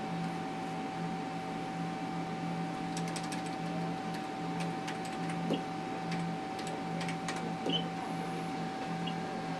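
Ultrasound machine running with a steady whine and a low hum that pulses on and off, while its console keys are clicked in two scattered runs, about three and about seven seconds in, as measurements are taken.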